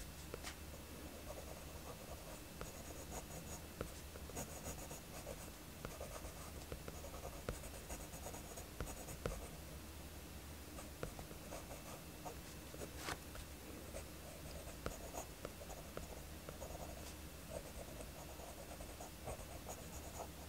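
Faint pencil strokes on sketchbook paper: short scratchy strokes with small ticks as small kanji characters are written.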